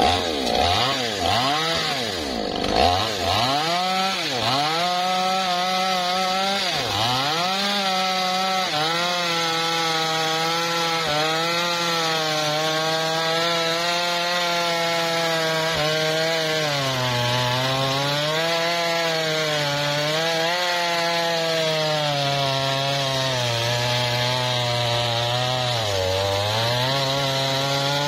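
Two-stroke chainsaw cutting into a tree trunk. For the first several seconds its revs drop and pick up again over and over as the chain bites, then it runs at steady high revs under load, sagging a little now and then as it works through the wood.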